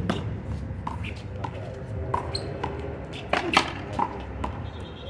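One-wall handball rally: a run of sharp slaps at irregular intervals as the rubber ball is hit by hand and bounces off the wall and the concrete court, loudest twice in quick succession past the middle, over background voices.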